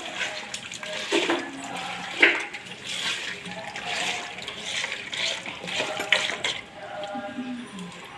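Hands mixing chicken pieces into wet ground masala and rock salt: squelching, sloshing wet sounds coming irregularly, about one a second.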